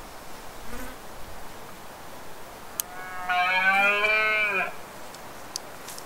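Red deer stag roaring in the rut: one call of about a second and a half, about three seconds in, its pitch falling at the end.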